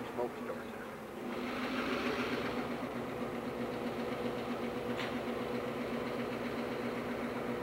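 Diesel engine of a derailed GP16 locomotive running, a steady hum that grows louder and rougher about a second in.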